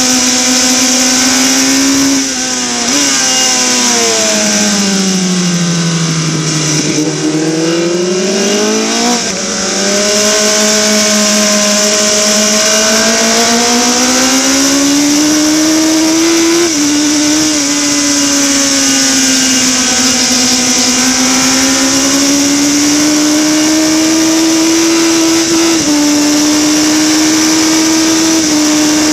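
Harris Yamaha classic racing motorcycle engine heard onboard at high revs. The engine note drops about two seconds in and falls steadily as the bike slows into a corner. It climbs again from about ten seconds in as the bike accelerates out, then steps down briefly at upshifts about seventeen and twenty-six seconds in. A steady high hiss runs under it all.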